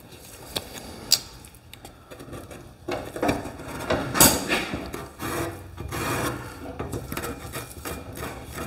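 Sheet-steel patch panel being pressed, shifted and slid against the rusty inner fender, giving irregular scraping and rubbing of metal on metal, with a couple of sharp ticks in the first second or so.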